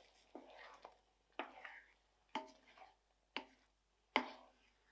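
Wooden spoon stirring gnocchi through thick tomato sauce in a pan: five strokes about a second apart, each sharp at the start and trailing off quickly.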